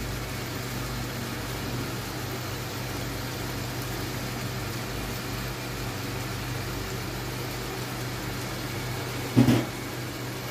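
Steady low hum with an even hiss over it beside a stove where a pot of chicken cooks in oil, and one short thump near the end.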